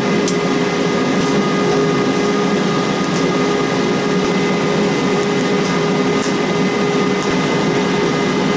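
TIG welding on a segmented exhaust pipe: a steady hiss with a constant hum from the welder, with a few faint crackles.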